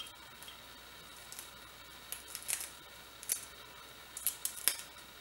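Fresh broccoli being torn apart by hand: a scattering of short, crisp snaps, bunched in the middle and toward the end.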